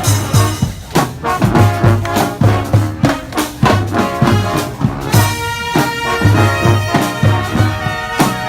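Brass street band playing, with trumpets and trombones over a steady percussion beat.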